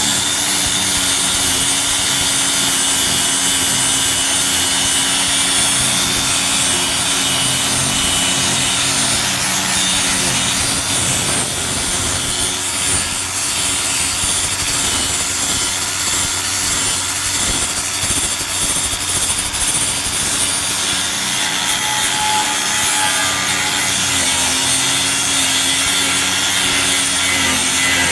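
Angle grinder running continuously, grinding down welds on a steel patch panel, with a steady motor whine over loud grinding hiss.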